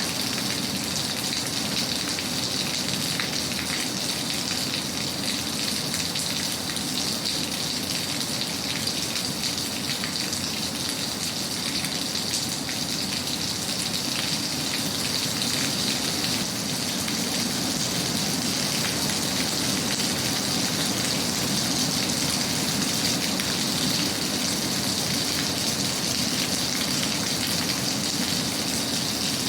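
Steady rain falling, even and unbroken.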